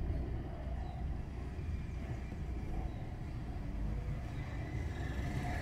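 Steady low rumble of a car on the move: engine and road noise, with no sudden events.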